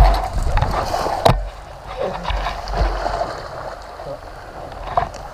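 River water sloshing and splashing around a stalled motorcycle as it is pushed out of a deep crossing, loudest at the very start, with a sharp knock about a second in. No engine is running: the flooded bike won't start.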